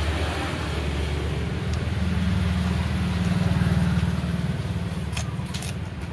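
A road vehicle's engine running close by, rising and growing louder from about two to four seconds in, then fading, like a vehicle passing. A few light clicks near the end.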